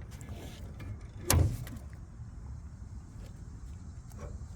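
A single loud knock about a second and a half in, over a steady low rumble.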